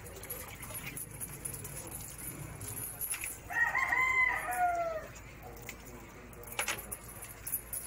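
A rooster crowing once, a call about a second and a half long that falls in pitch at the end.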